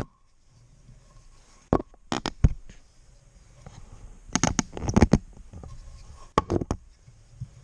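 Scattered sharp clicks and knocks of hard parts being handled and fitted, in four short clusters, the loudest about five seconds in.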